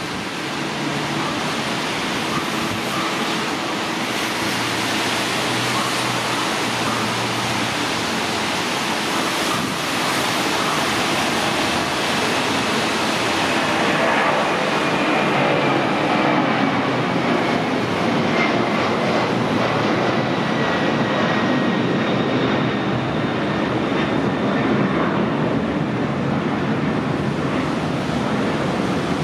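Boeing 767-300ER freighter's twin turbofan engines at takeoff power: a steady jet roar that grows louder toward the middle as the aircraft climbs out, with a high engine whine that slides down in pitch through the second half.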